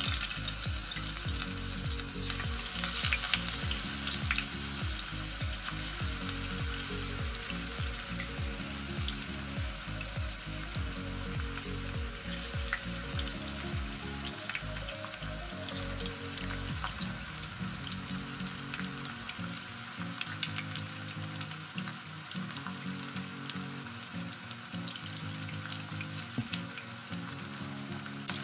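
Potato slices deep-frying in hot oil in a pan: a steady sizzle with many fine crackles, louder in the first few seconds, then settling.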